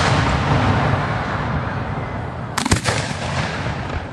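Aerial firework shells exploding: the rolling, echoing rumble of a shell burst dies away, then about two and a half seconds in a quick volley of several sharp bangs rings out and rumbles off.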